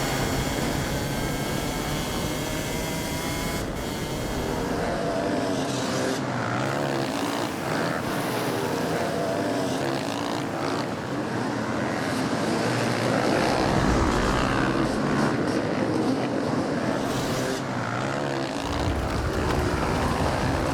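A large pack of hard enduro motorcycles racing at a mass start, many engines revving together, their pitches rising and falling over one another. A deeper rumble joins in about two-thirds of the way through and again near the end.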